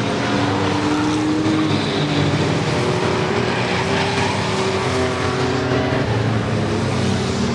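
Several race pickup truck engines running together as the field laps the track, their pitches drifting up and down as trucks come and go.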